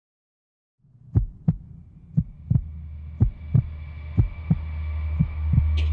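Heartbeat sound effect starting about a second in: double thumps roughly once a second over a low drone that slowly grows louder, with a faint high tone above it.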